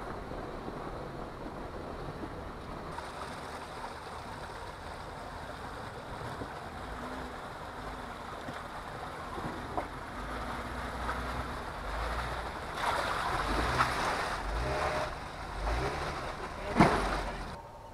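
Jeep crawling over rocks on an off-road trail: a steady low engine rumble that grows louder about halfway through, with knocks of tyres and underbody on rock and one sharp bang near the end.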